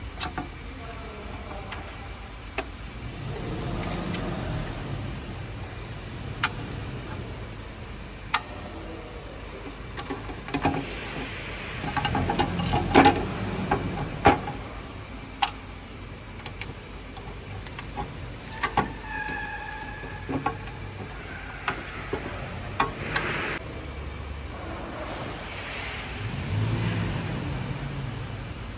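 Scattered sharp metallic clicks and taps as the removed transmission oil pan and hand tools are handled, loudest in a cluster about halfway through. Underneath, a low rumble of passing traffic swells and fades twice.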